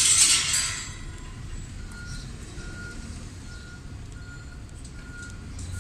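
A bus's air brakes let off a loud hiss, then its reversing alarm starts beeping steadily, just under two short beeps a second, over a low engine rumble.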